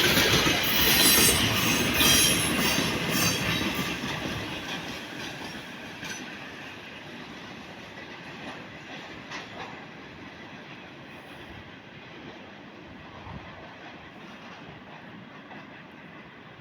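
Freight train passing close by, wheels clattering over rail joints with some high wheel squeal; after about four seconds the sound fades steadily as the train moves away.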